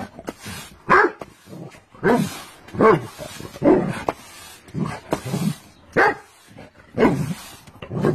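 A dog barking repeatedly, about once a second, as it goes after a push broom being swept at it.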